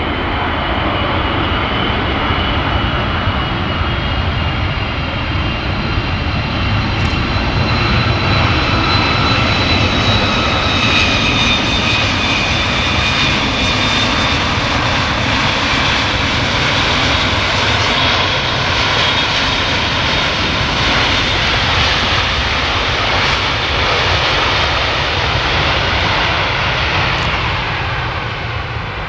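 Boeing 747-200 freighter's four jet engines running as the airliner rolls along the runway after landing and passes close by: a loud, steady roar with a high turbine whine, which fades near the end as the jet moves away.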